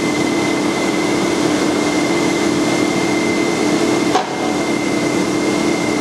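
Tapping machine cutting threads inside a steel rebar coupler sleeve: a steady machine whir with a steady high whine and a lower hum through it. A single sharp click comes about four seconds in.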